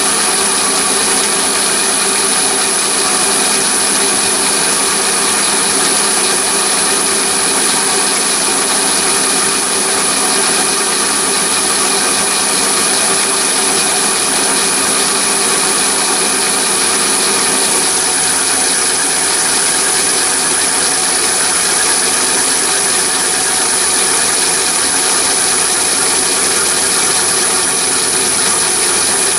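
Chinese mini lathe driven by a three-phase motor on a VFD, running steadily under load while its turning insert takes a 40 thou deep cut in hard steel, with a high steady whine over the machining noise. The cut is too deep for the insert without coolant: the chips are coming off blue-hot.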